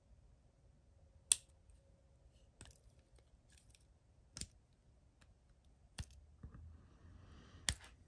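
Sharp metallic clicks from a Victorinox Swiss Champ XXL pocket knife as it is handled and its tools are worked: about five separate clicks spread over the seconds, the one about a second in the loudest, with faint handling rustle near the end.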